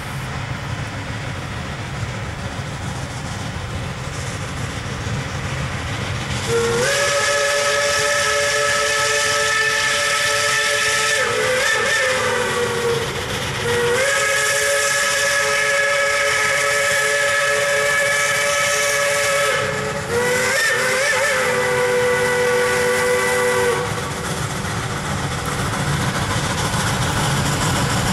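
Steam locomotive's chime whistle sounding three blasts: two long ones and a shorter third, each a steady chord of several notes that wavers in pitch as it is opened and closed. Under it runs the low, steady rumble of the locomotive working toward the camera.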